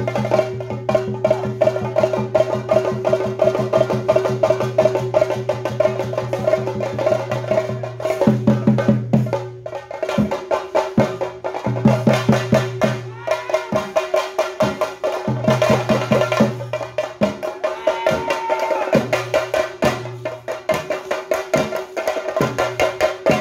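Theyyam drumming: chenda drums beaten in fast, dense stick strokes over a steady held tone. After about eight seconds the drumming falls into a stop-start rhythm.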